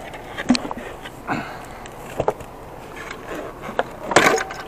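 A pipe wrench clicking and knocking against a threaded fitting on the end cap of a sheet-metal tank, a few scattered sharp clicks with a louder cluster near the end.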